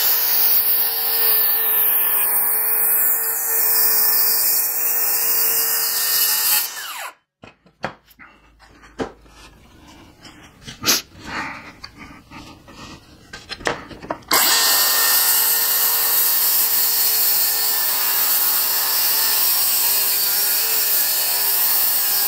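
Cordless circular saw ripping along a straight edge through wooden boards, trimming a board edge to match its neighbour for a tight joint. The saw runs with a steady whine, stops about seven seconds in, a few knocks and handling clicks follow, and it starts again about fourteen seconds in for another cut.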